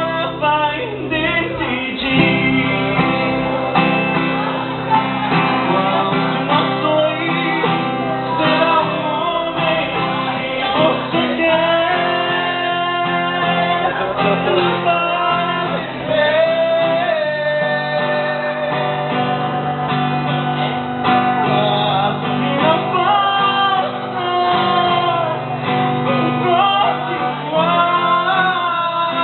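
A song playing: a sung melody over acoustic guitar accompaniment, in a country style.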